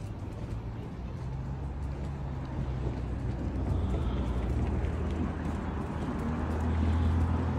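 A motor vehicle running, with a steady low engine hum whose pitch shifts slightly, under a low rush of road noise.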